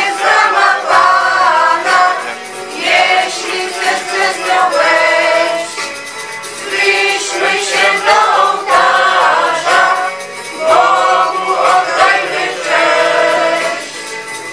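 A small amateur group of men and women singing a religious song together, in phrases of a few seconds with brief breaks between them.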